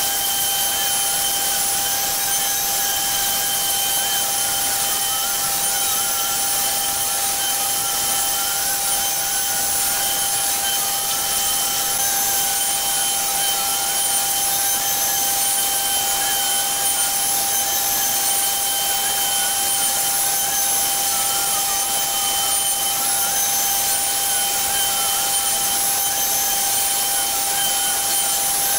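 CNC Shark's router spindle running with a steady whine while its small bit carves a pocket into a plywood panel. A fainter tone wanders slightly up and down under the whine.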